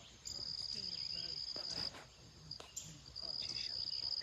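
An insect's high, steady buzzing trill in bouts that stop and start: from about half a second in to nearly two seconds, a brief burst, then again from about three seconds on.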